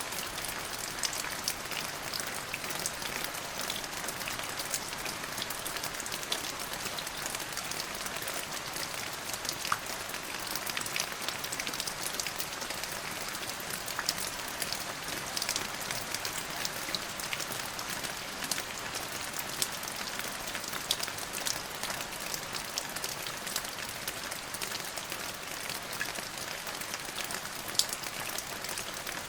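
Steady rain falling, a continuous hiss dotted with many sharp ticks of individual drops.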